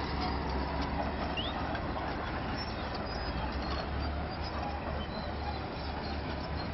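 Crawler bulldozer's heavy diesel engine running, a steady low rumble.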